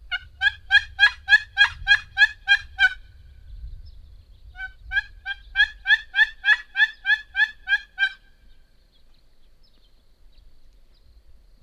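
A turkey yelping: two runs of evenly spaced, loud yelps, about four notes a second, each run lasting about three seconds with a short pause between.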